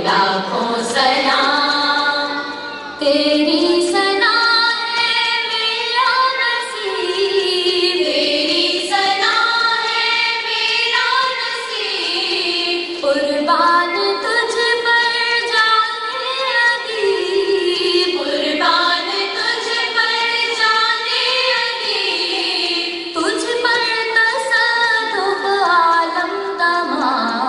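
Female voice singing a naat, a devotional Urdu song, in long drawn-out melodic phrases with no drum beat.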